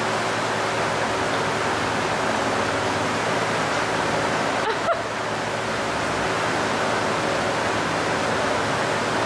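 Steady rushing noise of falling water, unbroken and even in level.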